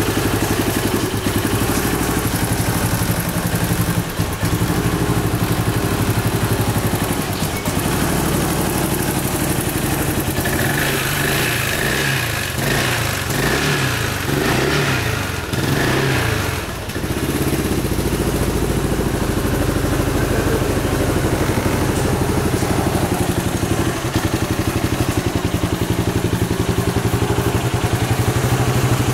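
Yamaha Majesty 400 scooter's single-cylinder four-stroke engine running on the stand, mostly at a steady idle; through the middle stretch its note rises and falls as the throttle is opened a few times, then it settles back to idle.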